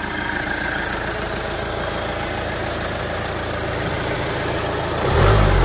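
A VW 2.0 TDI four-cylinder turbodiesel idling steadily, just restarted after a fuel-filter change and priming of the fuel pump. About five seconds in, a louder low rumble rises over the idle.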